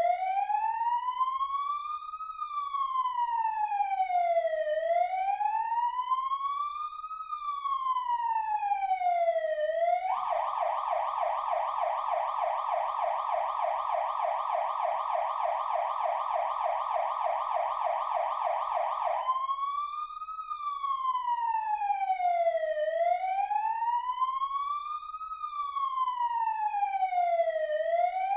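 Electronic emergency-vehicle siren sounding a slow wail that rises and falls about every five seconds. About ten seconds in it switches to a rapid yelp for roughly nine seconds, then goes back to the slow wail.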